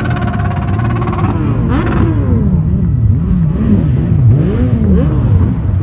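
Motorcycle engines passing close by in a slow procession. A steady engine note for the first second or so gives way to bikes revving, their pitch rising and falling over and over.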